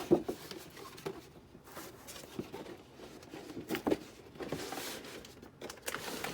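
Cardboard toy box being opened and handled: scattered rustles, scrapes and light knocks, with a sharp knock just after the start and another about four seconds in.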